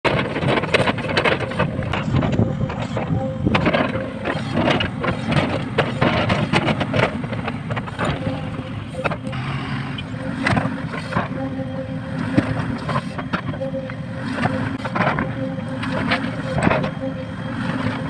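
JCB tracked excavator's diesel engine running steadily under load, with frequent sharp knocks and clatter of the steel bucket striking earth and rock as it digs and loads a tipper truck.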